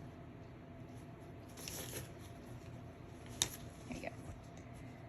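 Hands rummaging through and handling cloth diapers and fabric inserts: faint fabric rustling about two seconds in, and a single sharp click about three and a half seconds in.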